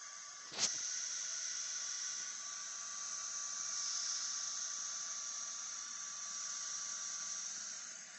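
Sculpfun S30 Pro laser engraver's air-assist pump switching on with a click about half a second in, then running with a steady whirring hiss and a faint whine. The sound eases slightly near the end.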